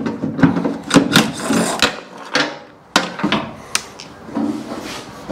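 Irregular metallic clunks, knocks and a short scrape as a loosely fastened body panel on a 1970 Chevelle is worked free and pulled off.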